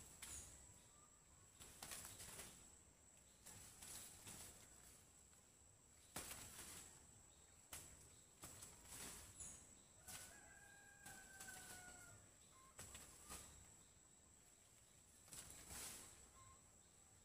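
Quiet cornfield ambience: faint rustling comes in repeated short gusts over a steady high insect whine. A distant rooster crows once about ten seconds in.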